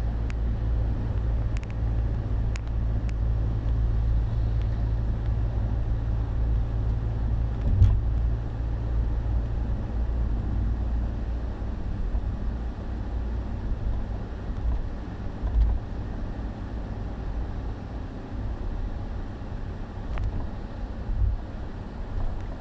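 Steady low road and engine rumble inside a moving car's cabin, easing a little in the second half. A couple of brief thumps come through, the loudest about eight seconds in and another near sixteen seconds.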